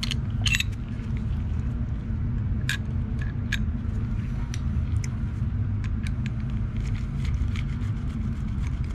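Scattered small metallic clicks and taps as a plate is fitted back into the top of a motorcycle carburetor and a screwdriver works in it, over a steady low rumble.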